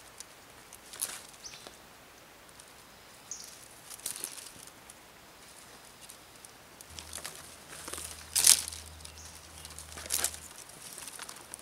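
Thin dry twigs rustling and crackling in the hands as they are gathered and bundled together, in scattered short rustles, the loudest about eight and a half seconds in.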